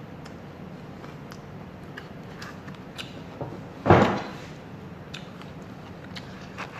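Faint clicks and small noises of eating with a fork, with one loud knock about four seconds in, like something set down hard on the table or bumping the microphone.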